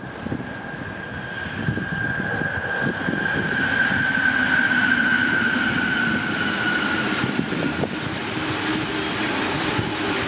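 Electric freight train passing, hauled by two electric locomotives: a high steady whine grows louder, sinks slightly in pitch and fades about eight seconds in as the locomotives go by. It gives way to the lower running noise of the wagons' wheels on the rails, over a bed of road traffic.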